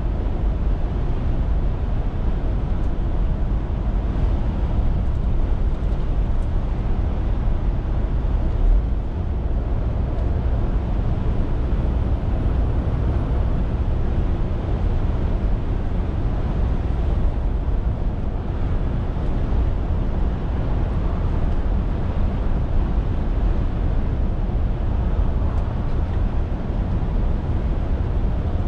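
Scania R450 articulated lorry driving at a steady pace: a steady low drone of its 13-litre straight-six diesel engine and road noise, with no marked changes.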